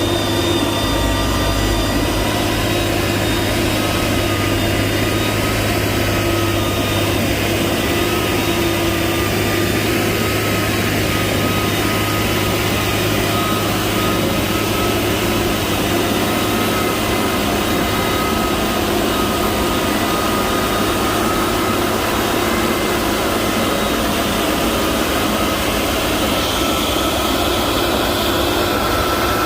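Diesel engine of heavy road-construction machinery running steadily, a continuous drone with a high steady whine over it.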